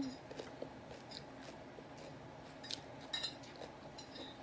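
Faint, scattered clinks and clicks of an eating utensil against a plate, a few light taps spread through, with a small cluster about three seconds in.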